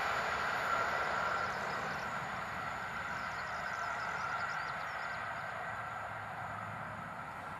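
Passenger train's wheels rolling on the rails as it moves away, fading steadily.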